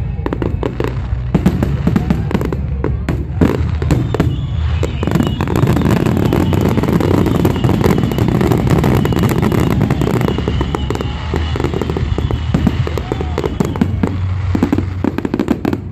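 Fireworks display in a dense, continuous barrage: rapid overlapping bangs and crackling over a deep rumble.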